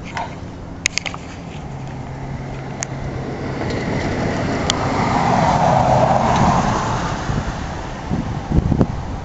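A car passing by on the street, swelling to its loudest about six seconds in and then fading, over a steady low hum.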